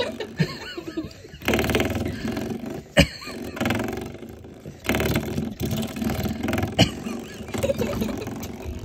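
Puppy growling in bouts while chewing and tugging at a spring doorstop. Two sharp snaps of the doorstop spring cut through, about three and seven seconds in; the first is the loudest sound.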